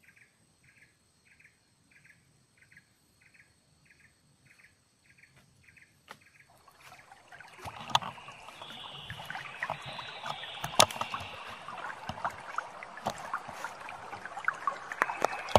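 Faint high chirps, evenly repeated about two a second. About six seconds in, loud rustling and crackling of leaves and twigs with sharp clicks sets in as the camera is handled and moved through the brush.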